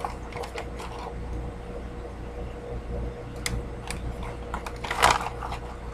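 Snack packaging handled: a few scattered crinkles and clicks, the loudest about five seconds in, over a steady electrical hum.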